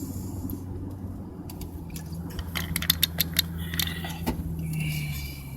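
Car driving, heard from inside the cabin: a steady low engine and road hum, with a quick cluster of light clicks and rattles around the middle.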